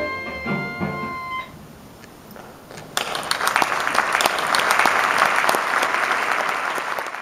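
Music ends on a held chord about a second and a half in; after a short lull, the audience breaks into applause about three seconds in and keeps clapping.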